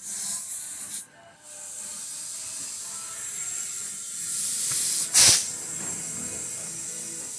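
Compressed air hissing through an air chuck on a tire's valve stem as the plugged tire is inflated: a hiss for about a second, a short break, then a steady hiss with a brief loud burst about five seconds in.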